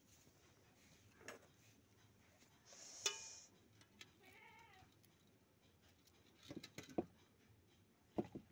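Near silence with a few light knocks and clinks of aluminium cooking pots being handled. The loudest is a single clink with a brief metallic ring about three seconds in. A short, wavering, meow-like cry comes about four seconds in.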